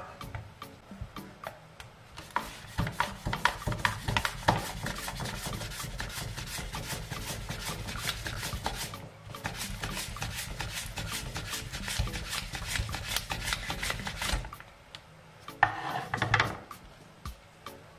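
Raw potato being sliced on a plastic handheld mandoline slicer: rapid rasping strokes over the blade in two long runs with a short pause between, then a short knock near the end.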